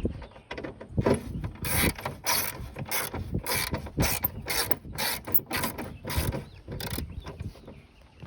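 Sharp mechanical clicks and knocks, about two or three a second, from tools and metal parts as the rear lift-gate latch plate is fitted back on.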